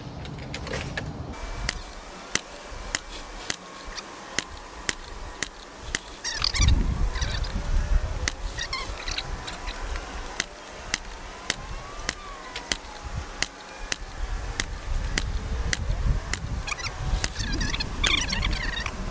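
Rifle shots at a range: a long run of sharp cracks, one every half second or so, as five-shot groups are fired at targets. A low rumble joins in around the middle and again near the end.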